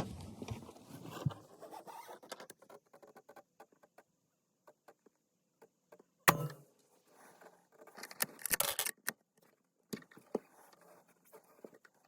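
Light clicks and rattles of a rifle being handled, with one sharp bang about six seconds in and a quick burst of metallic clicks a couple of seconds later.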